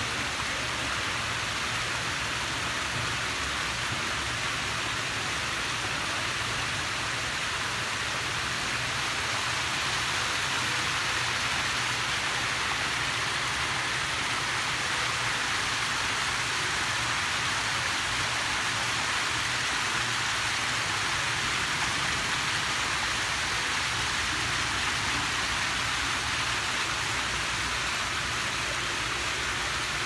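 Small waterfall splashing over rocks into a pond: a steady rushing hiss of falling water, a little louder through the middle stretch.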